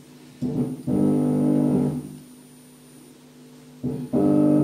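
A subwoofer loudspeaker driven by an IRS2092S class D amplifier sounds a loud, steady low hum with many overtones, twice: from about half a second in for a second and a half, then again near the end. It comes as a hand touches the amplifier's unshielded input wire, which picks up stray signal; the owner traces this to the amplifier auto-oscillating, which burns out a 10-ohm resistor in its output RC filter.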